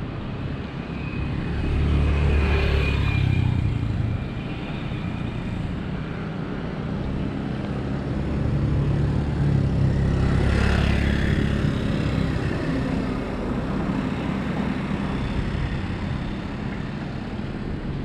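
Road traffic passing: a vehicle swells past about two seconds in and another around ten seconds in, over a steady low rumble.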